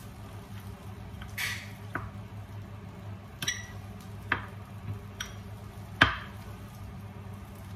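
Metal potato masher pressing boiled potatoes in a glass bowl: soft squashing with irregular sharp knocks of the masher against the glass, about six in all, the loudest about six seconds in.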